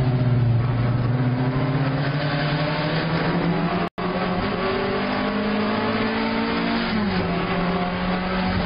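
Alfa Romeo 1750 GTV race car's twin-cam four-cylinder engine heard from inside the cabin, pulling hard with its pitch climbing steadily for several seconds, then dropping sharply near the end at an upshift. The sound cuts out completely for an instant just before halfway.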